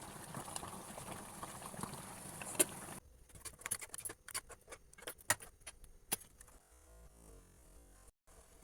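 Okra cooking in a pot, crackling and sizzling with many small pops. About three seconds in it cuts off abruptly, leaving only scattered clicks and pops.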